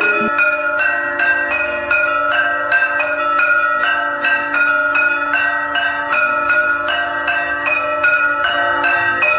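Temple bells rung for aarti, struck in a steady fast rhythm of about three strokes a second, each stroke ringing with several clear tones. A faint low steady tone runs beneath.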